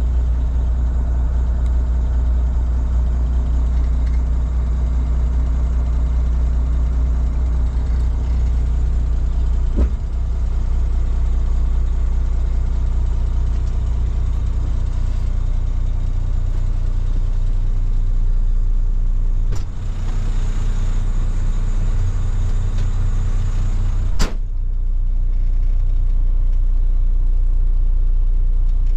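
The diesel engine of a 2015 Volvo VNL sleeper-cab truck tractor idling steadily, heard from inside the cab. A few knocks sound over it, the sharpest about five seconds before the end.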